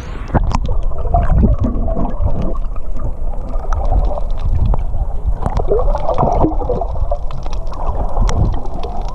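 Muffled water sloshing and gurgling around a snorkeler's camera in the sea, with scattered small clicks and bubble pops.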